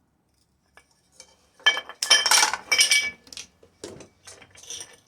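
Metal clinking and rattling, loudest in a clatter about two seconds in, then a few lighter clinks: small metal parts and tools being handled on a workbench.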